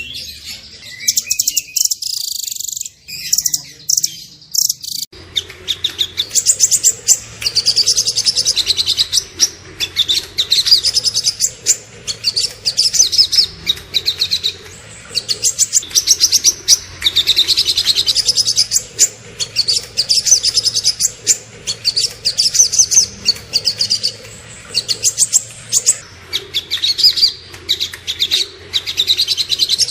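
Small songbird singing fast, high-pitched chirps and trills in rapid-fire runs, used as a training recording for cage songbirds. About five seconds in, a low steady hum and background noise come in under the song.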